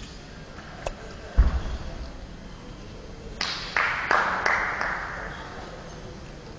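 Men's horizontal bar and its guy cables sounding under a gymnast's giant swings in a large hall: one deep thump about a second and a half in, then a run of short sharp sounds around the middle.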